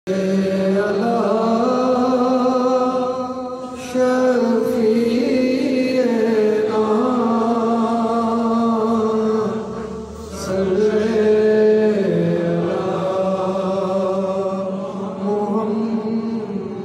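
Qawwali singers chanting in long held notes that step slowly in pitch, with brief breaths about four and ten seconds in.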